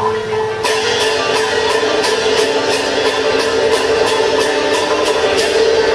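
Teochew opera accompaniment music: a melody instrument holds a steady note while sharp percussion strikes come in about half a second in and keep a steady beat of about four a second.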